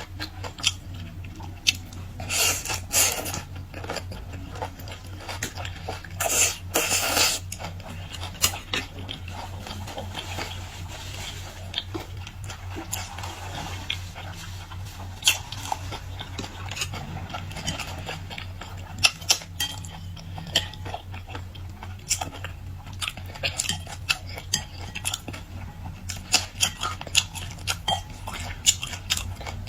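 Close-miked eating sounds: chewing and biting, with many sharp clicks and two longer crackly stretches about two and six seconds in, over a steady low hum.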